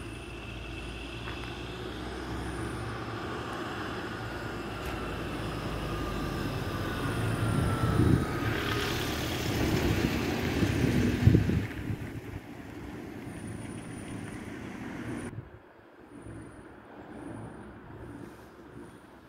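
Street traffic noise: a vehicle passing with a low rumble that builds to its loudest about eight to twelve seconds in, a falling tone as it goes by, then a sudden drop to quieter background about fifteen seconds in.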